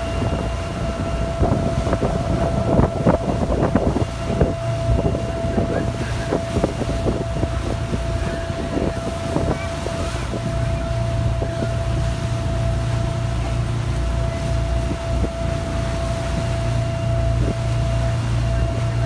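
A ferry's engine drones steadily underway, with a constant mid-pitched whine over the low hum. Wind buffets the microphone in gusts during the first half.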